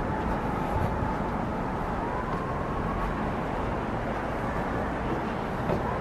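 Steady hum of distant road traffic, an even wash of noise with a faint wavering whine in it.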